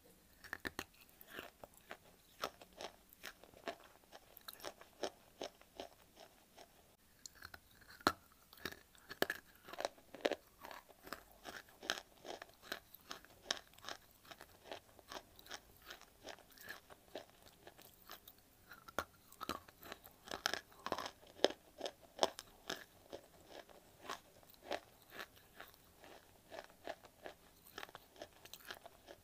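Dry white clay being bitten and chewed: a steady run of sharp, irregular crunches, several a second.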